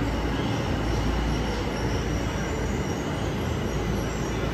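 Yellow Tokyo Metro Ginza Line subway train running past a station platform behind the platform screen doors: a steady, loud rumble of wheels on rail, with a faint high whine over it.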